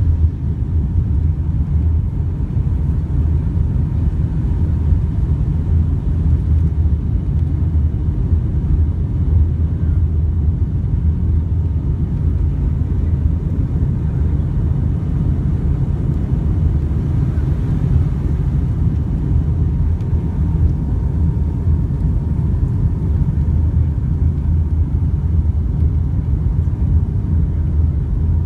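Steady low rumble of an airliner's cabin during its descent to land: engine and airflow noise heard from inside the cabin.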